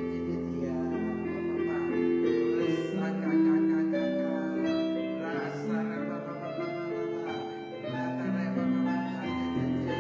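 Slow instrumental background music of long held chords over sustained bass notes, changing chord every second or two.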